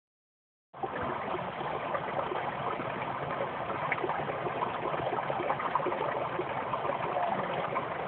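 Shallow rocky mountain brook babbling over stones: a steady rush of water with many small gurgles, starting just under a second in.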